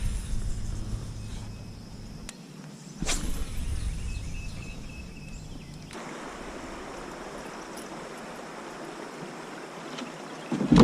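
Outdoor river ambience: a low rumble with a sharp click about three seconds in, then, from about six seconds, a steady even hiss like running water.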